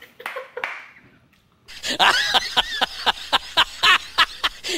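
A rapid run of short laugh-like calls, about four or five a second, over a low steady hum, from an inserted comic clip of a lion. It starts about two seconds in, after a brief pause.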